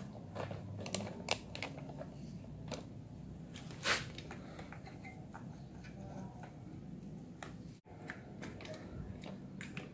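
Faint, scattered clicks and light taps of small metal parts handled while a piston is fitted onto the connecting rod of a Yamaha Mio scooter engine, with snap-ring pliers in hand. There is one sharper click about four seconds in.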